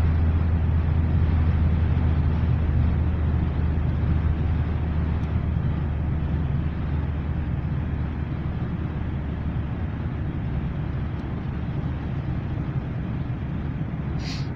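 Car engine and road noise heard from inside the cabin while driving: a steady low hum that eases off gradually. A brief sharp sound comes just before the end.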